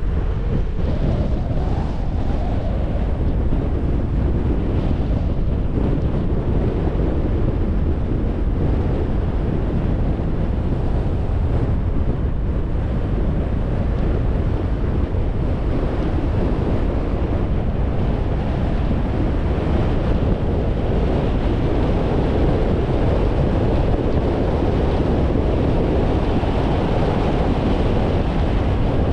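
Steady low rumble of a car driving: tyre and wind noise, even throughout.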